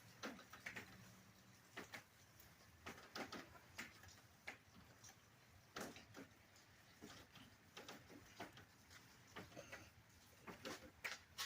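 Faint raindrops dripping, making scattered, irregular ticks and taps.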